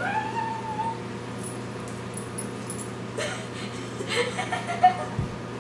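Young women's voices: a high rising whine-like vocal sound at the start, held for about a second, then soft giggling and a quietly spoken 'Ok...' near the end, over a steady low hum.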